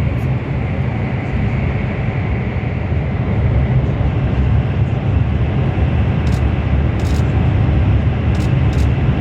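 Cabin noise inside a CRH1A high-speed train running on the line: a loud, steady low rumble, with a few faint high ticks in the second half.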